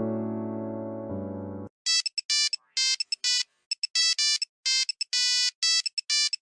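A piano tune stops about a second and a half in. An electronic ringtone follows: a quick, uneven run of short, buzzy synthetic beeps with dead silence between them.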